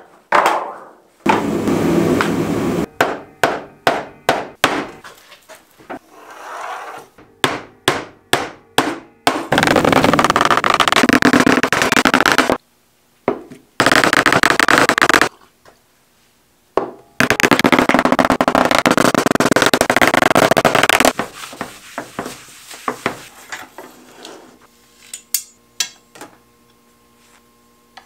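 A hammer striking sheet metal laid over a plywood board, in runs of quick blows. Between the runs are longer stretches of rasping, crinkling noise from the sheet metal being handled and cut.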